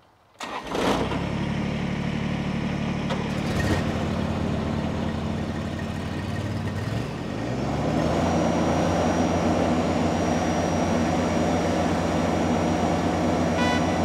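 Mower engines starting on the Kubota BX2380 compact tractor and the Toro Z Master zero-turn: one catches suddenly about half a second in and runs steadily. About seven seconds in, the engine sound dips, then rises to a higher, louder steady pitch as they are throttled up.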